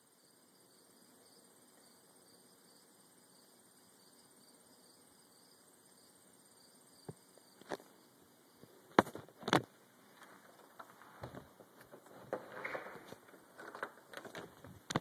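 Faint steady hum with a thin high whine. From about seven seconds in this gives way to handling noise from the camera being moved and put away: sharp clicks and knocks, the loudest about nine seconds in, then scattered rustling and bumps.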